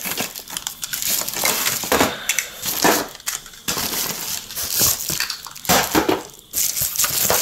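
Bubble wrap and a cardboard box rustling and crinkling in irregular bursts as small plastic toy cars are pulled out by hand, with short knocks as the toys are handled and set down.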